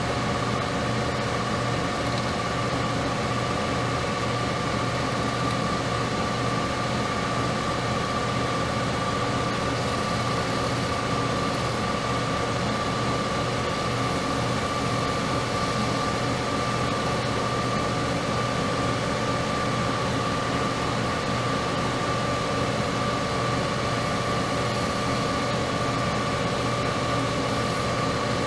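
Metal lathe running steadily, its spindle turning a part held in a 5C collet for facing to length: a constant whine over a low hum.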